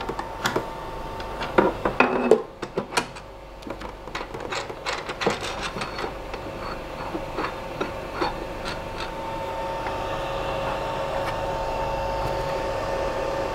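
Clicks, knocks and rubbing of hands on the build plate and its locking screw of a Creality LD-001 resin 3D printer, tightened after homing to level the plate. The handling is busiest in the first half, over a steady two-toned whine.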